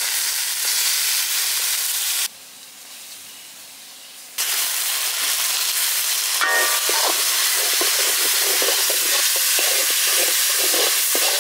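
Boneless mutton pieces sizzling loudly in hot groundnut oil in a kadai. The sizzle goes much quieter for about two seconds early on, then returns. About six and a half seconds in, a metal ladle clinks against the pan and starts scraping and stirring the meat in repeated strokes.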